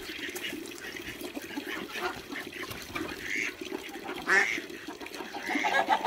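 Farmyard fowl calling softly a few times, about three seconds in, again a second later and near the end, over a steady fast pattering.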